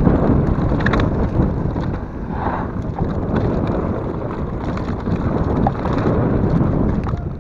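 Wind rushing over the microphone together with mountain bike tyres rolling over a dirt trail and the bike rattling, a steady rumble with scattered clicks and knocks.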